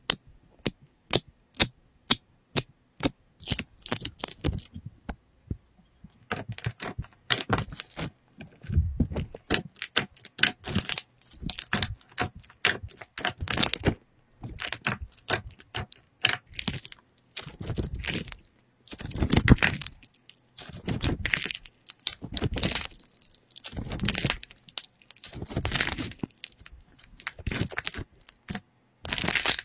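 Clear slime filled with soft jelly pieces and glitter being stretched, pulled and squeezed by hand, making irregular bursts of sticky crackling and popping. It opens with a quick run of sharp clicks.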